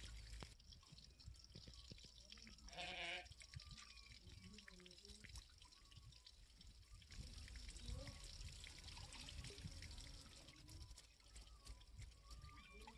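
Near silence with faint water trickling and dripping, and one short pitched call, lasting about half a second, about three seconds in.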